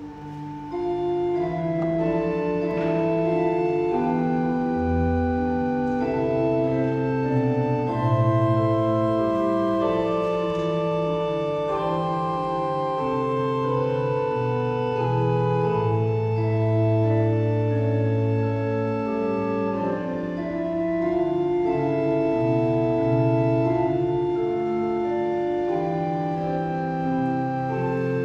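Church pipe organ playing a hymn tune in slow, sustained chords, starting just after the opening.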